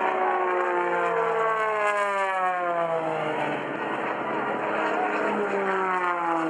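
Display aircraft engine flying past, its drone falling steadily in pitch as it goes by, with a second fall in pitch in the later part.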